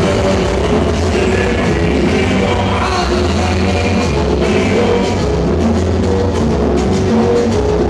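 Loud recorded dance music played through a sonidero street-party sound system, with a heavy, steady bass line and drums.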